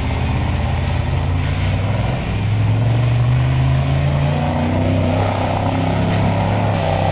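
Rock-crawler buggy's engine running hard under load, its pitch stepping up about two seconds in as it accelerates up a sand dune.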